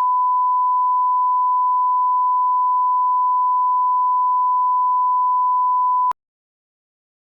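A steady 1 kHz sine test tone, one unbroken pitch, that cuts off suddenly about six seconds in. It is the broadcast sign-off tone that follows the national anthem as the mock station goes off the air.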